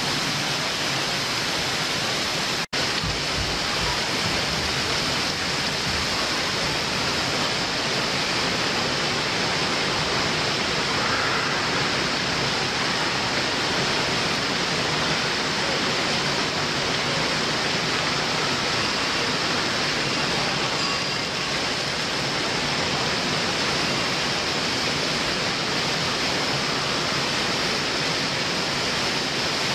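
Steady rush of water pouring down water-park slides and splashing into the runouts, an unbroken hiss, with a split-second gap in the sound about three seconds in.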